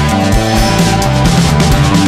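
Loud background music: a driving, heavy rock-style track with a steady beat and shifting bass notes.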